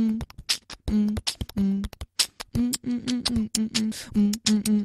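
Beatbox music: short bass notes sung by a voice over clicking and hissing beatboxed percussion. The notes come faster from about halfway through.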